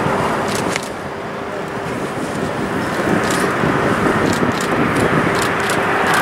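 Jet engine noise from an Airbus A350-1000's Rolls-Royce Trent XWB turbofans as the airliner banks low overhead: a steady rush with a held tone, dipping about a second in and then building. Short sharp clicks sound over it now and then.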